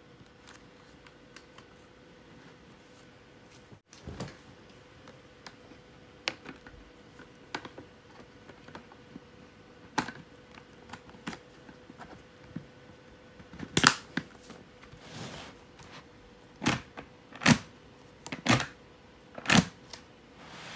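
Scattered plastic clicks and snaps from a Shark Ridill helmet's visor base plate and visor as they are pressed into place and worked by hand. The clicks grow louder and come about a second apart over the last several seconds.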